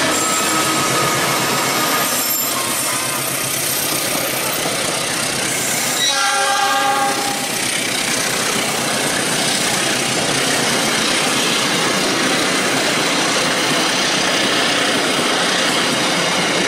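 A KAI CC206 diesel-electric locomotive passes close by, followed by its passenger coaches rolling past with a steady rumble of wheels on rail. About six seconds in, a train horn sounds once for about a second and a half.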